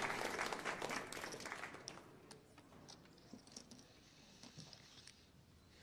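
Applause dying away over about two seconds, leaving a few scattered claps.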